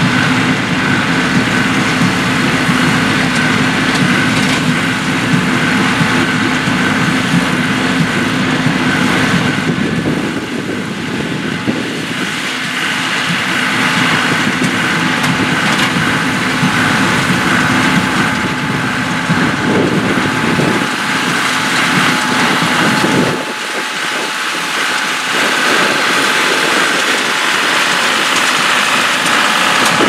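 John Deere 5055D tractor's diesel engine running steadily as it pulls a John Deere 348 small square baler, the baler's pickup and plunger working through windrowed timothy hay. A little over two-thirds of the way in, the deepest rumble drops away while the running sound carries on.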